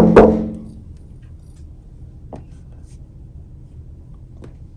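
A short, loud burst of voice right at the start that dies away within half a second, then low background noise with a couple of faint taps.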